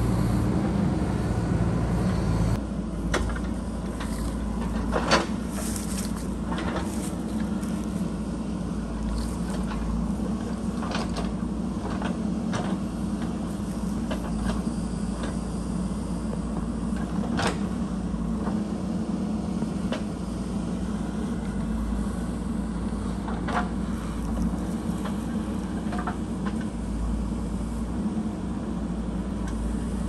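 JCB 3DX backhoe loader's diesel engine running steadily under digging load, a little louder for the first two seconds or so. Scattered single clanks and knocks from the bucket and arm working the stony soil.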